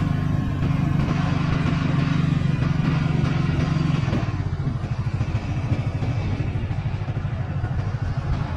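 Motor engines running: a steady low hum for the first four seconds or so, then a fast, low pulsing engine note.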